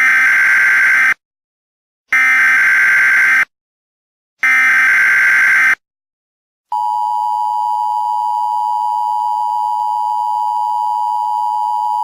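Emergency Alert System tones. First come three screeching SAME data-header bursts, each just over a second long with about a second's gap between them. Then, from about seven seconds in, the steady two-tone EAS attention signal sounds.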